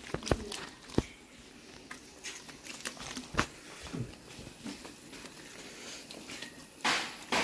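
Hands rubbing thick, wet masala paste into a raw whole goat carcass on a stone slab: soft, irregular squelching and slapping with a few sharp clicks, and louder rustling bursts near the end.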